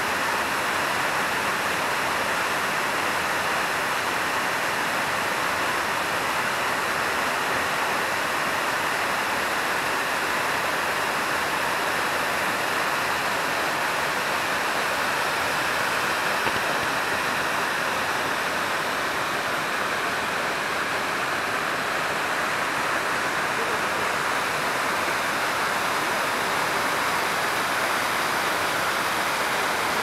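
Waterfall with several streams plunging into a pool: a steady, unchanging rush of falling and splashing water.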